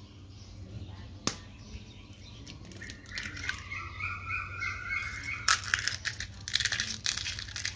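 Eggshells crushed between the fingers, giving a dense run of sharp crackles that starts a little past halfway. Before that a bird chirps briefly in the background, and there is one sharp click early on.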